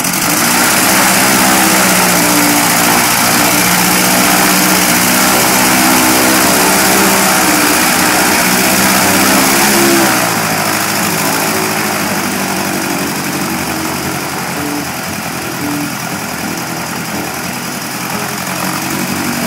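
ULPower UL260i aircraft engine on its first run, turning the propeller at a steady speed. About halfway through the engine speed drops and it runs on a little quieter at the lower speed.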